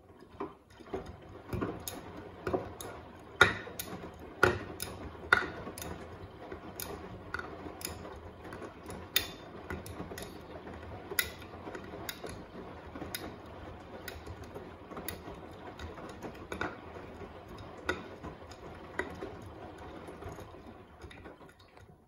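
Front-loading washing machine drum turning a wet load of laundry in the wash, a steady churning with sharp, irregular clicks and knocks about once a second, loudest in the first few seconds. The drum sets off at the start and stops just before the end.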